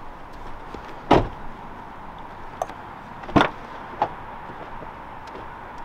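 Two loud thumps about two seconds apart, with a couple of lighter clicks between and after them.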